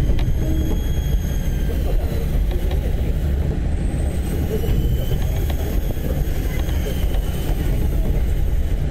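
Steady running noise heard from inside a moving pair of ex-JNR KiHa 30 and KiHa 37 diesel railcars: a low diesel rumble mixed with the rolling noise of the wheels on the rails.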